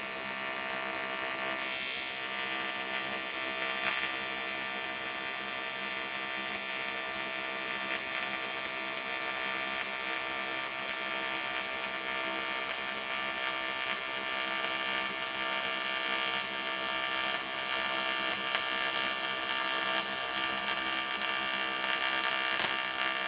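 AC TIG welding arc on aluminum from an Eastwood TIG 200 AC/DC set at a 50-50 balance (equal electrode negative and positive), a steady electric buzz held throughout that cuts off suddenly at the very end as the arc is broken.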